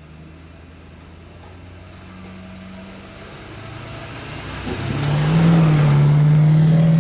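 Snowplow truck engine drawing closer, growing much louder about five seconds in, then running loud and steady as it works.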